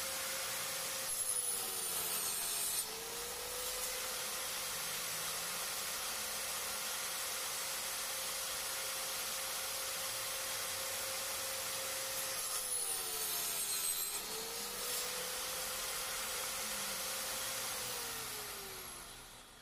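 Electric power saw running and cutting wood twice; the motor's hum drops in pitch while the blade is in the wood and recovers between cuts. Near the end the saw is switched off and its pitch falls as it winds down.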